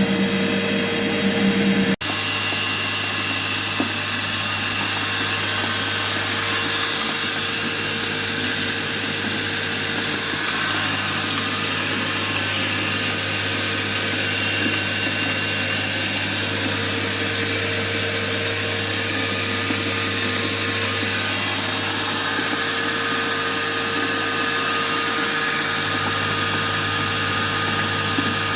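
Disc grain mill for crushing livestock feed, its shaft on ball bearings spinning at speed: a steady, even machine whir with a constant low hum. The sound changes abruptly about two seconds in, then runs on unchanged.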